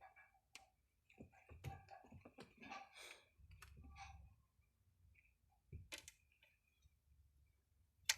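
Near silence broken by scattered faint clicks and light taps, with a sharp click near the end.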